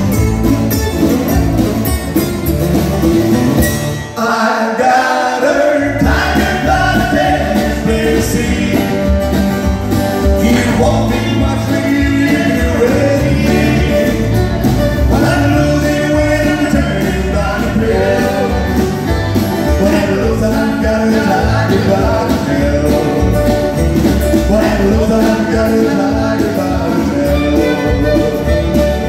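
Live acoustic country music: strummed acoustic guitars and a fiddle, with a man singing lead into a microphone from about four seconds in. The bass drops out briefly as the singing begins.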